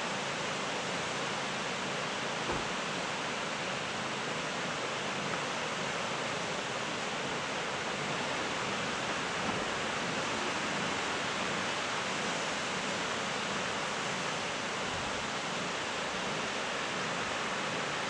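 Tall, narrow waterfall falling down a rock face into a pool: a steady, even rush of water that does not change.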